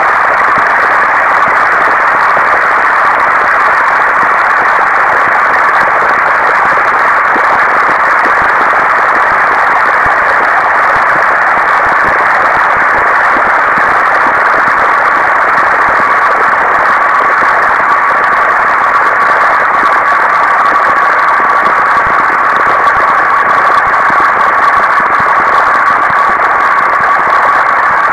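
Computer-generated procedural sound driven by a pixel-sorting algorithm: a loud, steady, noisy rush packed into the middle pitches. A thin steady tone sounds within it and comes through more clearly in the second half.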